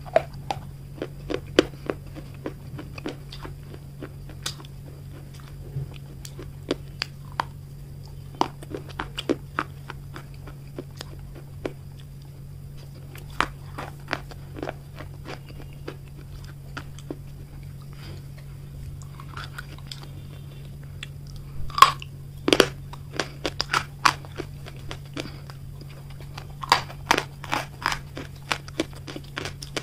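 Baked red clay being bitten and chewed close to the microphone: sharp, irregular crunches, with a cluster of louder crunches about three quarters through and more near the end.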